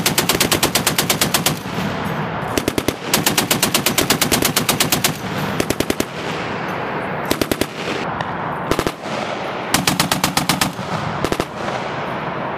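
M2 Browning .50-calibre heavy machine gun firing a series of bursts at roughly nine shots a second, two of them about two seconds long and the rest short. The echo rolls on between bursts.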